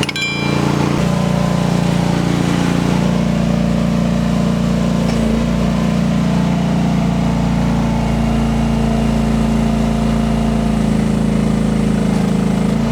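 Rippa R10 mini excavator's small engine running steadily, picking up slightly about a second in.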